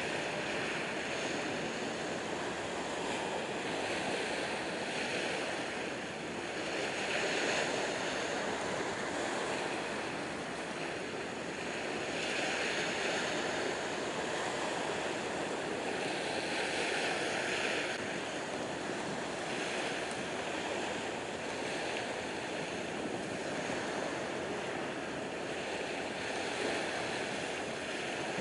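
Small waves washing at the water's edge: a steady hiss that swells every few seconds.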